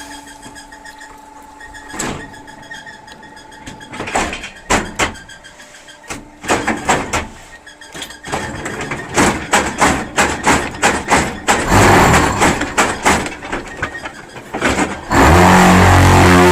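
Concrete block (pumice block) press machine working: a steady mechanical hum, then a run of irregular metallic knocks and clanks as its parts cycle. Near the end a loud steady drone starts suddenly.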